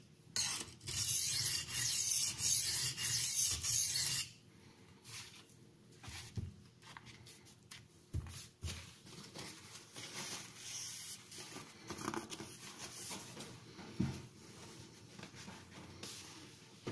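Steel knife edge rubbed in quick back-and-forth strokes across an oilstone, a dense gritty scraping that stops suddenly about four seconds in. After that there are only faint light scrapes and a few soft taps.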